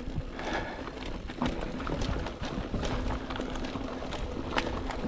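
Mountain bike riding over a dirt single-track trail: steady tyre noise with many small clicks, knocks and rattles from the bike over roots and rocks.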